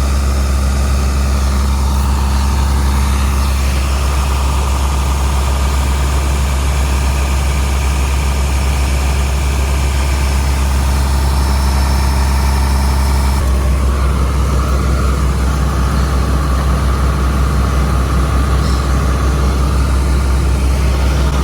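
A large farm-machine engine running steadily with a low hum; its note shifts slightly about two-thirds of the way through.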